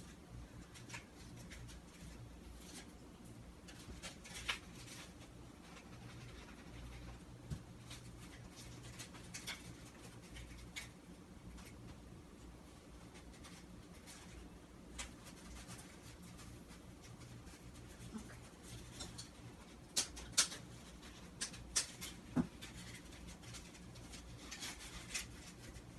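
Scattered small clicks, taps and rustles of hands working with paper-craft materials, over a steady low hum. A cluster of sharper clicks comes about twenty seconds in.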